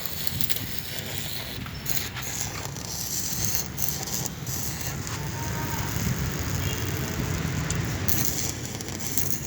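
Stick arc welding: the electrode crackling and buzzing steadily as it burns.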